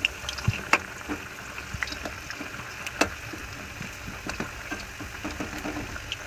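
Kitchen handling noises: scattered light clicks and knocks, with one sharper knock about three seconds in, over a steady faint hiss.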